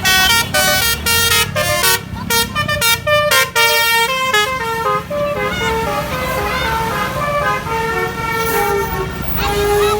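Bus 'telolet basuri' musical horn playing a melody: a quick run of short, stepped notes, then slower, longer held notes in the second half, over low vehicle noise.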